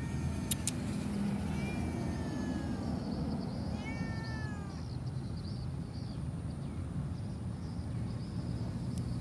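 Tabby-and-white street cat meowing, with two clear meows about two and four seconds in, each falling in pitch, over a steady low background rumble.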